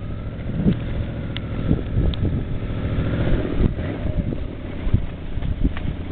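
Yamaha Venture touring motorcycle's V4 engine running steadily as it rides along a sandy dirt track, with wind rumbling on the microphone.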